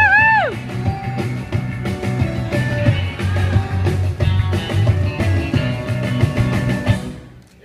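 Rock music with a heavy beat, played loud over a hall's sound system, with a brief swooping tone right at the start. The music fades out near the end.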